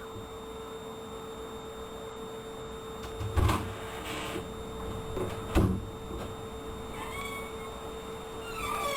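Two dull knocks about two seconds apart over a steady electrical hum and hiss, then near the end a short, high, falling cry-like call.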